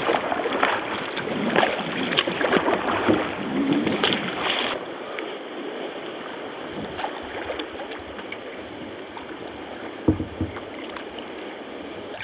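Sea kayak paddling: paddle blades splashing and water washing against the hull, busy and choppy at first, then abruptly quieter with only scattered drips and light splashes. A thump about ten seconds in.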